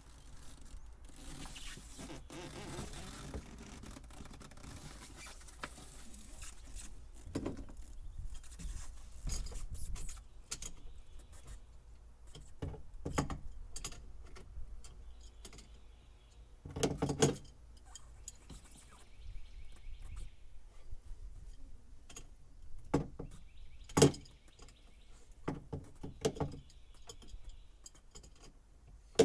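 Old boat wiring being pulled out and handled: rustling for the first several seconds, then scattered sharp knocks and clicks, with a loud clunk about two-thirds of the way through and another shortly after.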